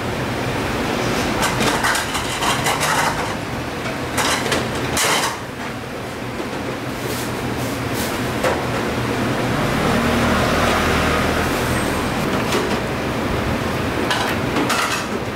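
A metal spoon scraping and clinking against stainless steel bowls as batter and meat filling are scooped, with scattered short clinks, over a steady background hum and rumble.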